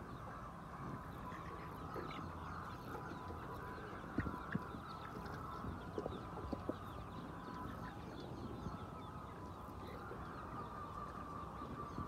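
A large flock of white chickens calling together: a steady, dense chorus of overlapping clucks and murmurs, with a few sharper single calls and clicks standing out here and there.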